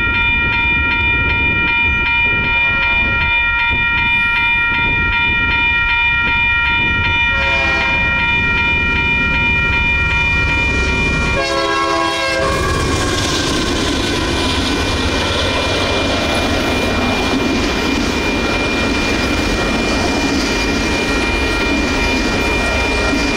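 A grade-crossing warning bell rings in a rapid, steady pulse while the freight train's diesel horn sounds three times: faint, then louder, the last blast the loudest and longest, as the lead Union Pacific locomotive reaches the crossing. After that the locomotives and autorack cars pass with loud rumbling and wheel noise, the bell still ringing underneath.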